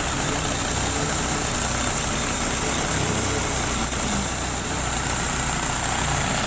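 2000 Saturn engine idling steadily, with a misfire that makes the motor shake.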